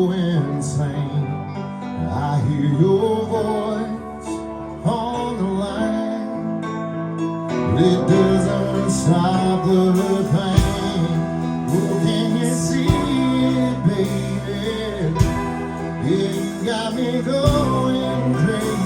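Live band playing a slow ballad: guitar with a male singing voice, and sharp drum hits joining in around the middle.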